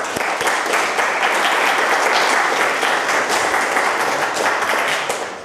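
Conference audience applauding: many people clapping steadily, fading out near the end.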